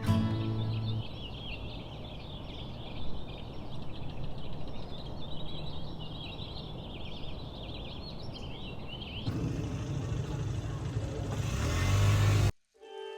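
Small birds chirping and twittering over a steady low background rumble. About nine seconds in the birdsong stops and a louder rushing noise takes over, swelling before it cuts out abruptly near the end.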